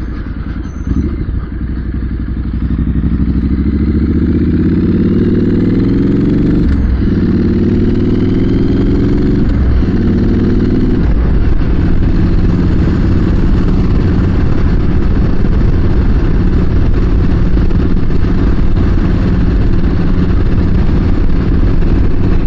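Triumph motorcycle engine accelerating away hard, its pitch climbing through the gears with upshifts about 7 and 10 seconds in, then settling to a steady cruise. Wind noise on the helmet microphone runs under the engine.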